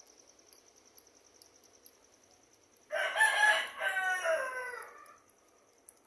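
A rooster crowing once, about three seconds in: one call of about two seconds that drops in pitch at its end. Crickets chirr steadily underneath.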